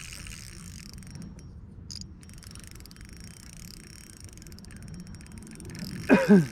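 Steady low background noise, then about six seconds in a short, loud voiced exclamation from a person, its pitch sliding.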